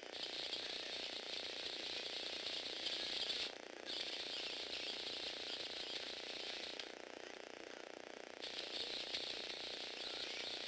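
Small electric motor and plastic gear train of a Lego Technic remote-control eight-legged walking robot running. It stops briefly about three and a half seconds in, and again for about a second and a half around seven seconds in.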